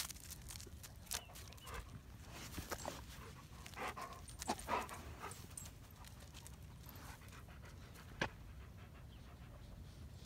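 Dog panting in short breaths close by, mostly in the first half, with scattered sharp clicks.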